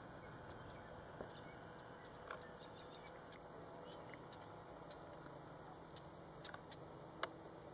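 Near silence: faint steady background hiss, broken by a few soft clicks, the sharpest about seven seconds in.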